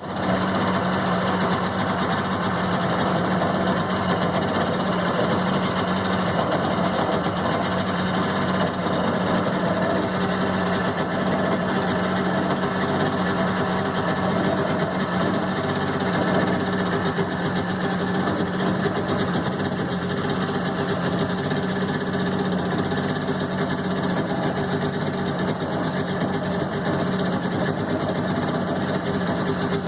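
A boat's engine running steadily at low speed, a constant low hum with no change in pitch.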